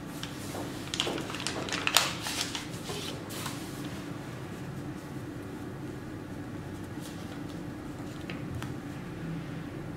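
Old paper being handled: a letter and notebook pages rustle and crinkle sharply several times in the first few seconds, then only a steady low hum remains.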